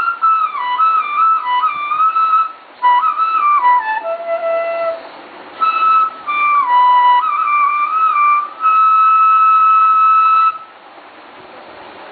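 A single high-pitched instrument playing a slow melody in short phrases with brief pauses, closing on a long held note that stops near the end.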